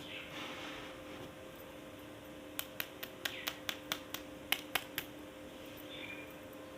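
Toys being handled in an unboxing: a soft rustle, then a quick run of about eleven sharp clicks over two and a half seconds, over a faint steady hum.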